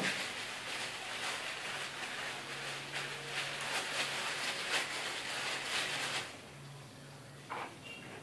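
Hands rubbing and working hair dye through wet hair: a soft, irregular scrubbing rustle that stops about six seconds in, followed by one brief faint knock.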